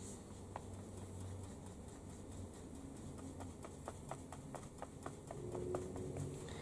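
Faint, light taps and ticks, two or three a second, from a paintbrush working paint onto the model diorama, over a low steady hum.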